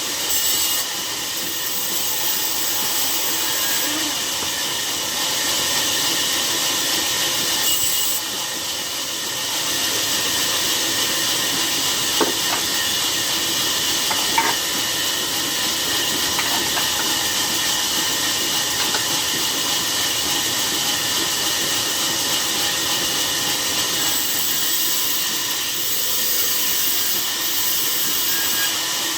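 Sawmill saw running steadily through a log, a constant hissing rasp of the blade in the wood, with a couple of faint ticks midway.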